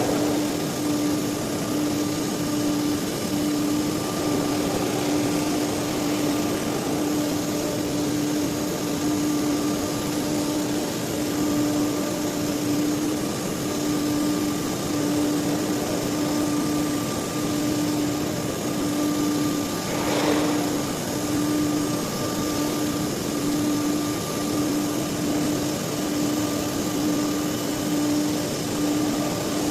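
CNC nesting router running: a steady machine hum with a constant low tone that pulses faintly about once a second over a bed of noise, and a brief rising sound about twenty seconds in.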